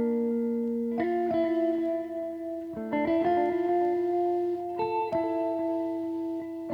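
Guitar music: slow chords, each struck and left to ring, changing about every one to two seconds.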